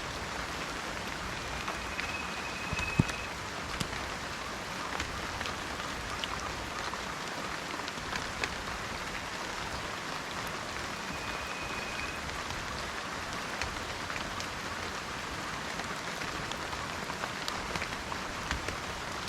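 Steady rain falling in a forest, an even hiss with scattered drops ticking close by and one louder drop-knock about three seconds in. A thin, high, level whistle sounds twice, about two seconds in and again about eleven seconds in.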